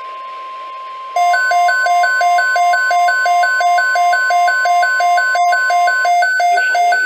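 NOAA Weather Radio 1050 Hz warning alarm tone, a steady single tone. About a second in, a weather radio receiver's alert alarm starts over it much louder, beeping in alternating low and high pitch about three times a second. The steady tone stops near the end while the beeping goes on, and a voice begins under it.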